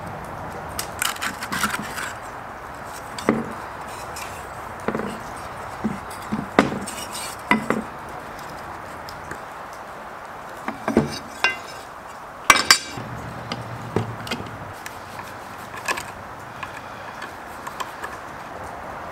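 Scattered metal clinks and knocks, irregular and spaced a second or more apart, as hard parts and hand tools are handled and set down, over a steady background hiss.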